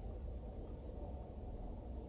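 Faint steady low rumble inside a car cabin, from the car running.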